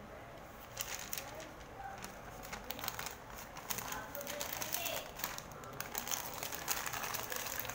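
Printed burger wrapping paper crinkling and rustling as hands fold it around a burger, a quick run of sharp crackles starting about a second in.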